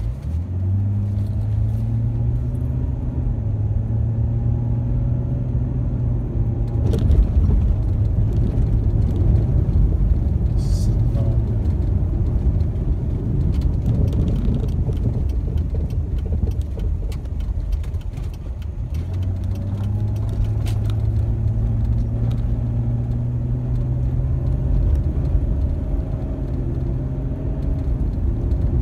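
Ford Mustang driving on a dirt road, heard from inside the cabin: a steady engine note over constant tyre and road rumble, with scattered small clicks and rattles. The engine note sinks under the rumble after about seven seconds and comes back about two-thirds of the way through, climbing slowly as the car picks up speed.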